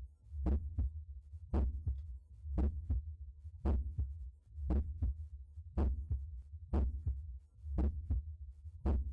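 Heartbeat heard through a stethoscope at the mitral area: a regular paired lub-dub about once a second over a low rumble.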